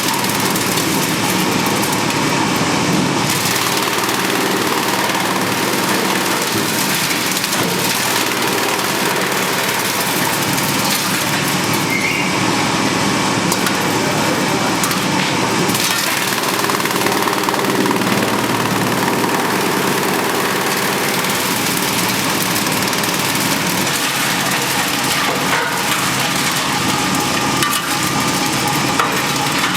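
Drum wood chipper running steadily and loudly, its motor and cutter drum making a continuous mechanical noise.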